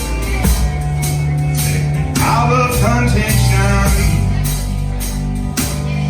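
A band playing a country-rock song, with held bass notes under a steady beat. About two seconds in, a wavering melodic line rises over it.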